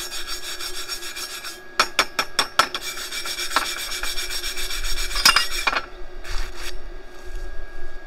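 Hand wire brush with a wooden handle scrubbing back and forth over a freshly laid 6010 stick weld on steel, brushing the bead clean. The rapid, scratchy strokes stop about six seconds in, followed by one short last stroke.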